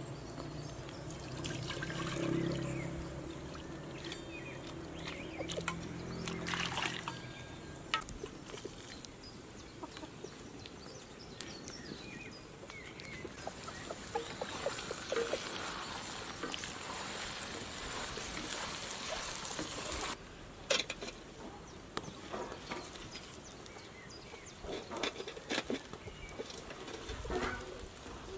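Sounds of outdoor cooking work: liquid being poured and scattered small knocks, with chickens clucking in the background.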